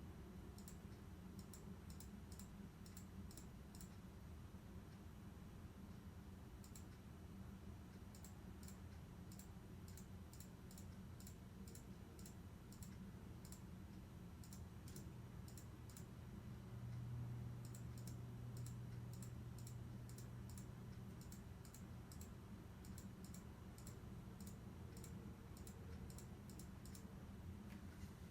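Faint, irregular clicking in quick clusters, over a low steady hum that swells slightly about two-thirds of the way through.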